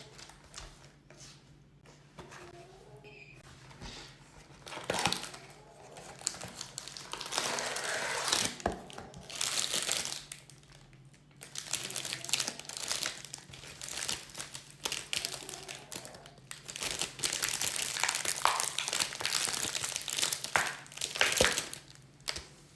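Plastic packaging of mochi crinkling and tearing as it is opened, in bursts with short pauses between.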